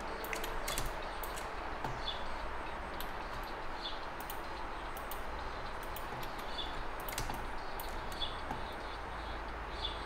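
Steady low room hiss with scattered soft, short clicks from working at a computer.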